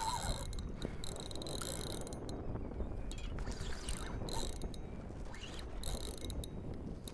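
Large saltwater spinning reel cranked while fighting a hooked kingfish, its gears whirring and clicking, with the drag giving line in short high-pitched spurts as the fish pulls.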